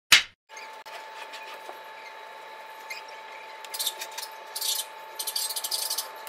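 A film clapperboard snaps shut with one sharp, loud clap. A steady hum with a faint steady tone follows, and from a few seconds in there are several short bursts of rustling as red cloth is handled and arranged.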